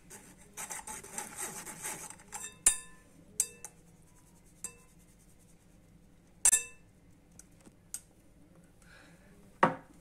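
A spoon scraping flour through a metal mesh sieve, a rasping rub for a couple of seconds. Then a series of sharp taps and clinks, some with a short metallic ring, as the sieve and spoon knock against the glass bowl.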